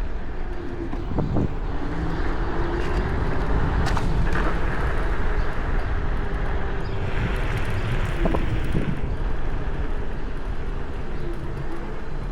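Wind rushing over a chest-mounted camera's microphone while riding an electric scooter, with the motor's faint whine rising and falling and a few light rattles.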